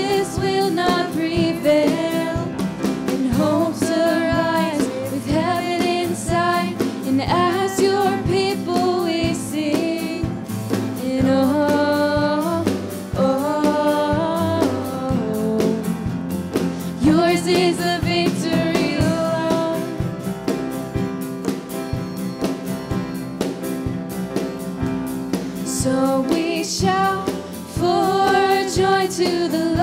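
A worship song performed by a singer with instrumental accompaniment. Sustained sung phrases rise and fall over a steady instrumental backing.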